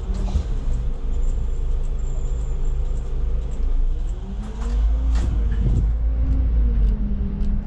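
Solaris Urbino 18 articulated bus running with a steady low rumble; about four seconds in the engine note climbs as the bus accelerates, then drops back near the end. A few brief rattles about five seconds in.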